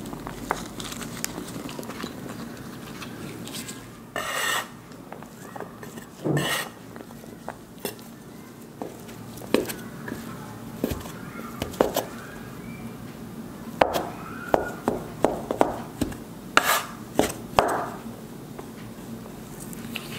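Metal bench scraper chopping cold butter cubes into flour on a wooden board: a run of sharp knocks of the blade on the board, coming quickly in the second half, with a couple of longer scraping sounds earlier.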